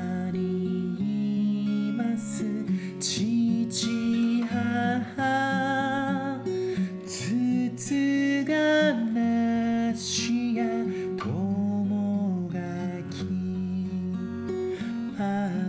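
A song with strummed acoustic guitar and a singing voice.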